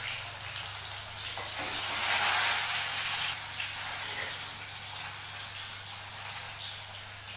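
Onion frying in hot oil in a wok: a steady sizzle that swells about two seconds in, then settles.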